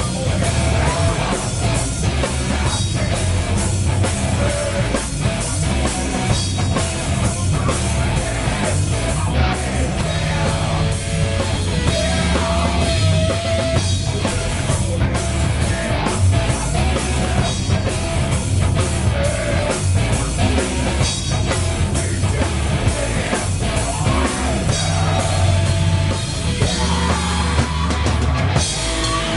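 Stoner/doom metal band playing a heavy riff, with distorted electric guitars, bass guitar and drum kit at full volume and a guitar melody on top.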